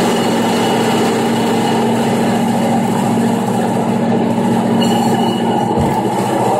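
Meat band saw with a Kleen Kut wet-saw system running as a beef shoulder clod is pushed through the blade: a loud, steady motor hum under constant cutting noise.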